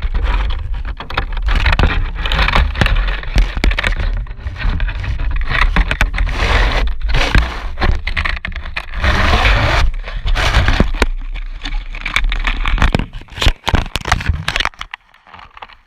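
Dryer vent cleaning: loud, rough scraping and rumbling with many crackles and clicks, easing off after about thirteen seconds.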